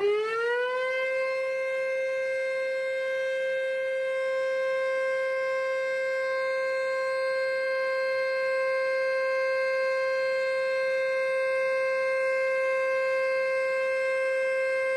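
Dam discharge warning siren, rising in pitch within the first second, then holding one steady tone. It warns that a sediment-flushing gate is about to open and release water.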